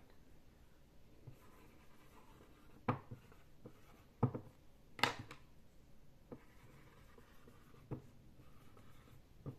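Pen writing on paper, a faint scratching in short stretches, with about five sharp knocks spread through, the loudest sounds.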